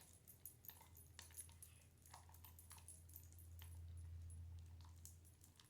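Faint, irregular ticks and taps of a stick stirring runny slime in a bowl, over a low steady hum.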